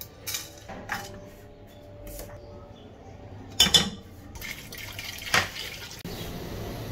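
Metal spoon and ingredients clinking and knocking against an aluminium pressure cooker pot: scattered light clicks, with louder knocks about three and a half and five and a half seconds in.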